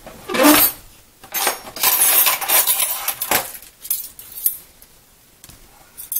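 Wooden kitchen drawer pulled open and the metal utensils inside rattling and clinking as a spoon is picked out. The rattling comes in a short burst, then a longer run of a couple of seconds, then a few lighter clinks.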